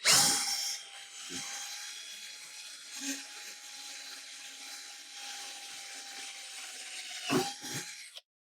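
Electric drill running steadily with a constant whine, boring a pilot hole through metal. It starts with a loud burst, gives a couple of knocks about seven seconds in, and stops abruptly near the end.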